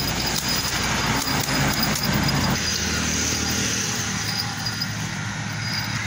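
Road-traffic noise: a steady wash of vehicle sound with a low rumble that drops away about two and a half seconds in.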